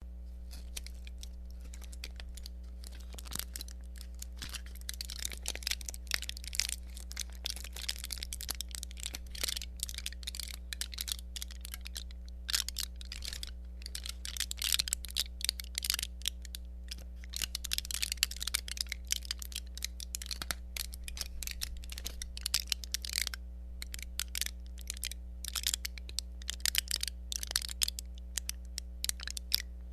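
Thin tin metal crackling and popping: irregular small clicks, sometimes sparse and sometimes in dense clusters, over a steady low hum.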